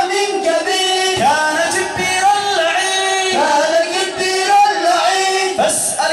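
Male voices singing, with long held melodic notes.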